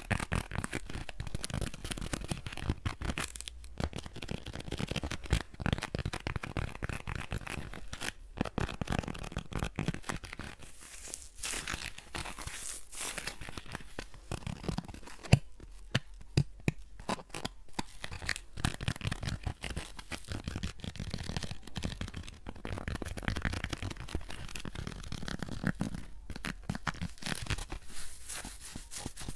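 Close-miked ASMR handling sounds: rapid, irregular scratching, rubbing and crinkling right at the microphone, keeping up without pause.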